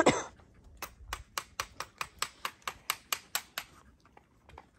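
Firewood being cut by hand: a loud knock, then a quick, even run of about a dozen sharp strokes, about four a second, that stops a little before the end.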